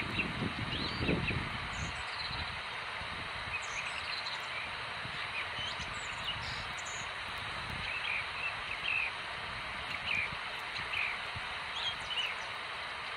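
Outdoor ambience: a steady background hiss with scattered short, high chirps of small birds throughout, and a low rumble in the first second or so.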